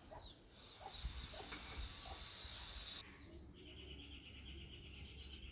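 Faint outdoor ambience with birds chirping. A steady high hiss fills the first three seconds, and after it stops a fast pulsing trill runs through the second half.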